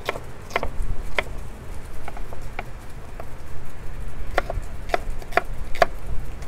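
Knife slicing green bell peppers thin on a cutting board: a series of short knocks about two a second, in three quick runs with brief pauses between them.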